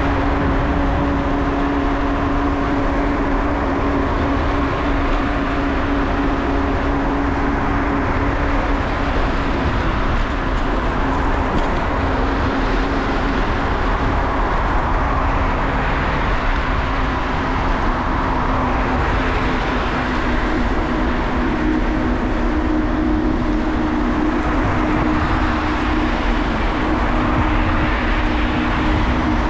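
Wind buffeting a GoPro's microphone and steady rolling noise from a moving bicycle, with a steady hum that fades out about eight seconds in and returns about twenty seconds in.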